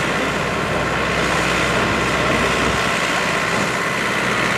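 Small Massey Ferguson tractor's engine running steadily while hitched to the pulling sled.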